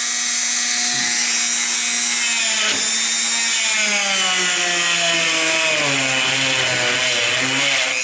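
Dremel rotary tool with a small wire-brush bit running at medium speed, scrubbing paint off model railroad rails: a steady motor whine over a scratchy hiss. The whine's pitch sinks gradually through the second half.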